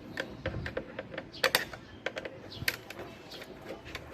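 Irregular light clicks and knocks of hard plastic parts and fittings being handled and unclipped, with a louder double click about a second and a half in.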